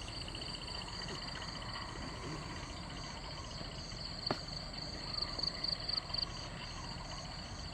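Insects chirping in a steady high-pitched chorus of several overlapping pulsing trills. There is one sharp click about four seconds in and a few soft knocks a little later.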